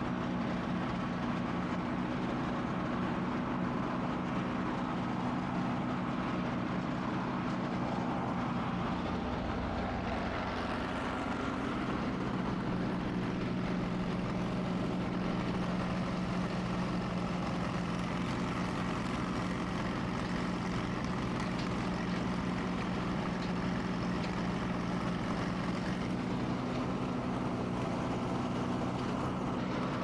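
Wood chipper's engine running steadily, its note shifting slightly about eleven seconds in.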